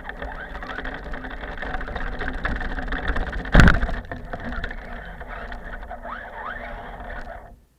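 RC car's motor running and revving in short rising whines as it drives through snow, with one loud thump about halfway through. The sound cuts off suddenly near the end.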